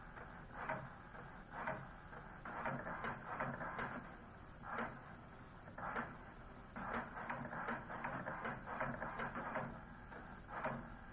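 HP Deskjet 2700 inkjet printer printing its cartridge alignment page: the print-head carriage sweeps back and forth in short passes, some alone and some in quick runs, with clicks of the paper feed between them.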